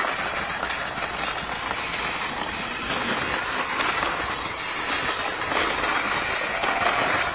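Remote-control toy car driving over rough stone paving: a steady noisy rolling sound from its small electric motor and wheels.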